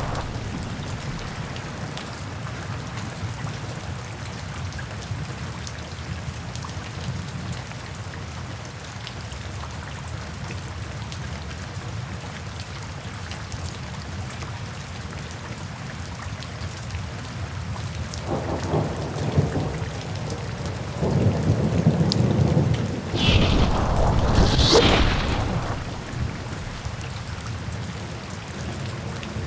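Heavy rain falling steadily. About two-thirds of the way through, thunder rumbles in, building to a loud sharp crack near the end and then fading.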